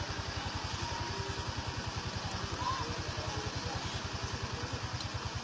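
A small engine idling steadily nearby, a rapid, even low throb that does not change.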